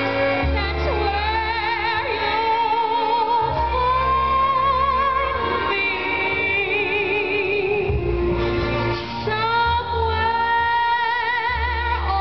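Live amplified concert music from stage speakers: a woman sings long held notes with wide vibrato over a band with sustained bass notes.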